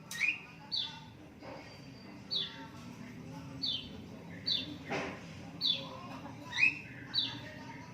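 Lovebird chirping: a string of about ten short chirps, each sliding down in pitch, one or two a second.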